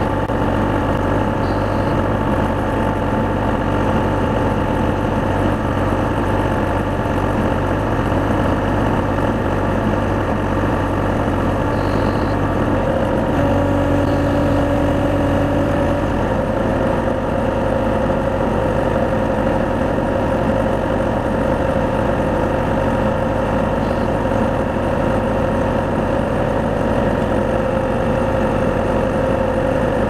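Excavator engine and hydraulics running steadily while the helical screw pile driver attachment turns a screw pile into the ground. It is a continuous drone with a few held tones that shift about halfway through.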